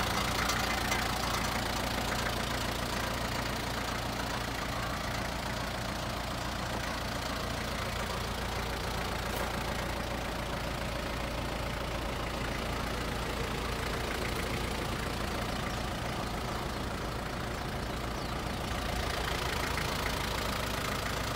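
Isuzu Elf light truck's engine idling steadily.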